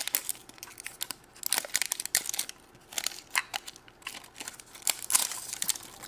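A blind-bag toy surprise wrapper being torn open and crinkled by hand: irregular sharp crackles and rustles.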